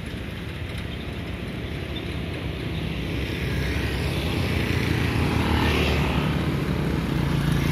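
Motor scooters passing on the road, their engines and tyres growing steadily louder as they come close near the end.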